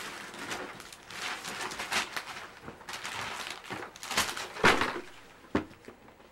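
Wrapping paper being ripped and rustled off a cardboard gift box in a series of tears, with a couple of sharp knocks near the end.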